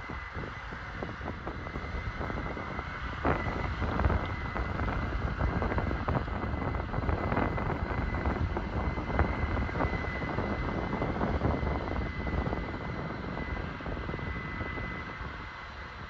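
Combine harvester running as it harvests across the field, heard from a distance as a steady low noise with a thin, steady high whine. Wind buffets the microphone, strongest in the middle and easing near the end.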